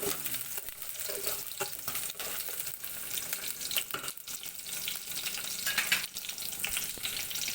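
Chopped onions sizzling in hot cooking oil in a pot, with a utensil stirring and scraping against the pot in repeated clicks, one of them louder about six seconds in.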